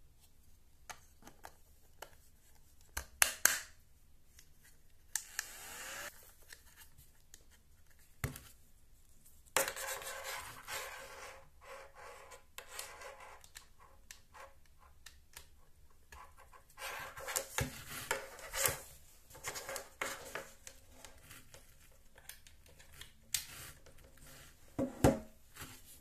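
Hands handling a small white plastic desktop vacuum cleaner: rubbing and scraping of the plastic housing with scattered sharp clicks, loudest about three seconds in and near the end, as the two halves are fitted together and a USB charging cable is plugged in.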